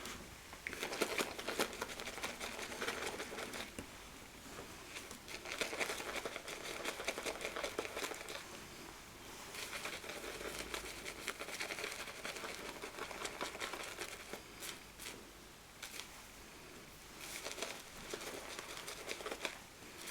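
Shaving brush swirled in a mug, whipping glycerin shaving soap into lather with a wet swishing, in four spells of a few seconds each with short pauses between.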